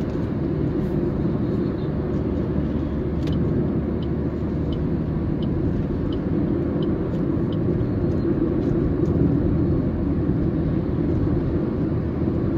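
Steady road and engine noise inside a moving car's cabin. For a few seconds in the middle there is a faint, even ticking, about three ticks every two seconds.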